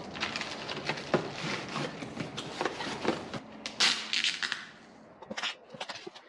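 Plastic packaging crinkling and a cardboard box being handled while packing, with scrapes and light knocks, and a louder burst of rustling about four seconds in.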